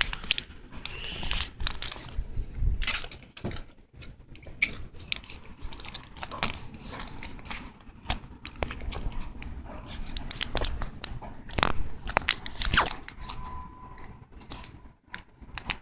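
Adhesive tape being pulled and torn, with irregular crinkling and clicking handling noises as a wire is taped to a phone.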